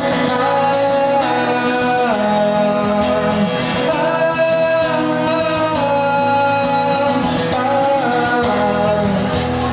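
Live pop song: a male voice singing long, held notes over acoustic guitar and band.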